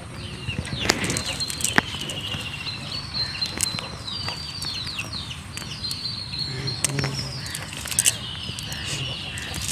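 Small birds chirping and trilling all through, high calls with quick downward slurs, over scattered sharp clicks.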